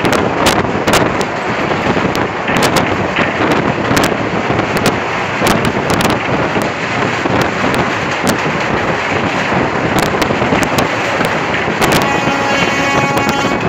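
Wind rush and rumble of a Jan Shatabdi passenger train running at about 100 km/h, heard from an open window or door, with many sharp, irregular clacks of the wheels over rail joints and the steel girder bridge. About twelve seconds in, a steady pitched tone with several overtones joins the noise.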